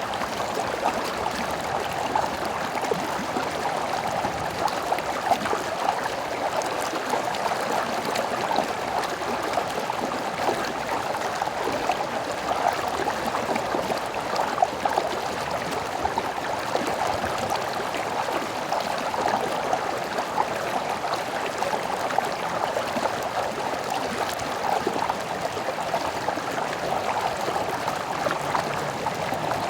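Stream water flowing steadily, an even rushing and babbling with no break.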